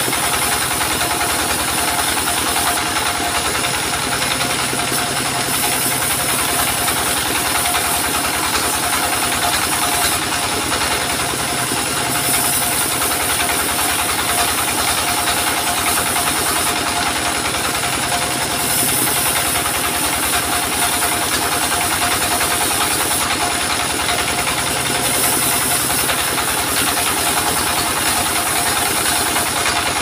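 Stationary single-cylinder diesel engine running steadily and driving a circular saw that rips waru wood boards. The high cutting noise shifts every six or seven seconds as boards are fed through.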